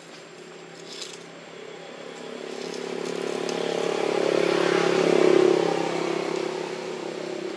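A motor vehicle passing by: its engine hum grows louder, peaks about five seconds in, then fades.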